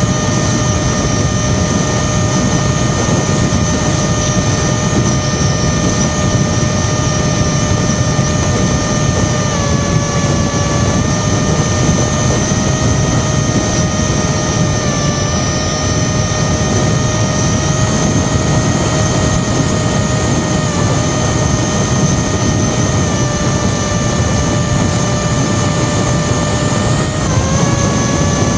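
T-Motor F80 Pro brushless motor spinning a 6040 propeller in cruise flight: a steady propeller whine over a rush of wind. The pitch dips slightly and recovers a few times, and near the end it drops then climbs back as the throttle changes.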